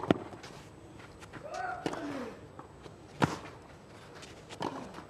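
Tennis rally: sharp racket-on-ball hits about every one and a half seconds, two quick knocks at the start, with a player's short grunt on the shot about two seconds in.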